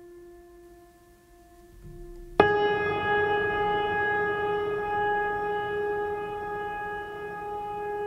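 Background music of sustained drone-like notes: a soft held note, then a loud new note enters suddenly about two and a half seconds in and rings on, slowly fading.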